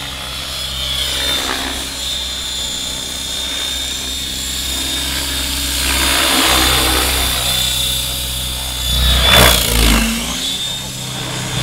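Radio-controlled model helicopter flying, its motor and rotor giving a steady high whine, with rushing swells as it swoops past, the loudest about nine seconds in, when the whine's pitch briefly drops and climbs again.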